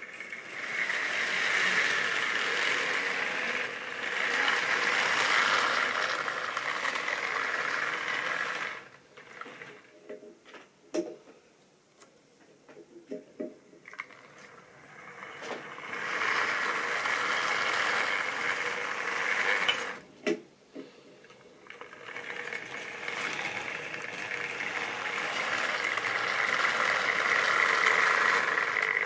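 Model railway train running on the track: a steady whirring with clicking of wheels over the rails. It swells loud as the train comes near and drops to quieter scattered clicks as it runs further off, with three loud passes.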